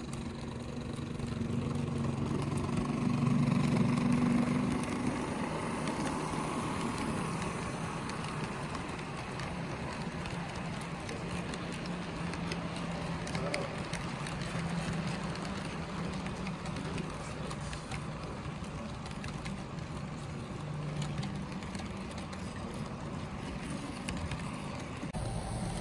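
HO scale model diesel locomotive and freight cars running on the layout track: a steady engine-like hum, a little louder about three to four seconds in, with faint clicking from the rolling stock.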